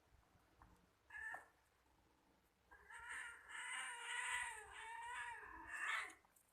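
Cat meowing: one short meow about a second in, then a long, drawn-out wavering meow lasting about three seconds.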